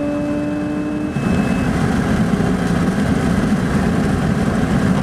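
Mazda RX-8's two-rotor rotary engine at about 9,000 rpm, its steady tone rising slightly, heard from inside the cabin. About a second in, the clean tone gives way to a rougher, louder, uneven engine sound that carries on to the end.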